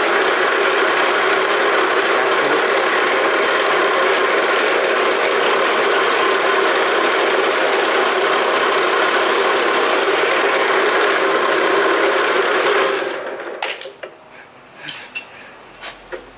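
Bench drill press motor and chuck running steadily at speed with nothing in the chuck. About thirteen seconds in the press is switched off and winds down over about a second, followed by a few light clicks.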